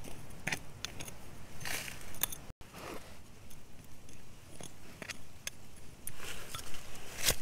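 A small flat metal tool scraping and digging through gravelly soil in a series of short strokes, with grit and small stones crackling and clicking.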